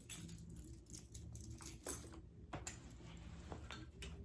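Faint clicks and light knocks of a bunch of keys being handled, a few separate small clicks over a steady low hum.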